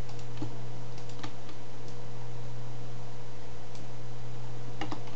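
A few scattered clicks of computer keys over a steady low hum.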